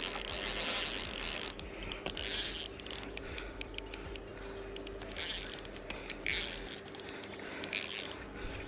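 Fishing reel ratcheting and clicking in bursts while a hooked trout is being fought.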